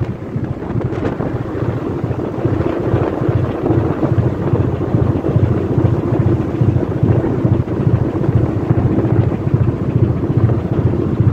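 Fishing trawler's engine running with a steady low rumble, heard on deck with wind buffeting the microphone.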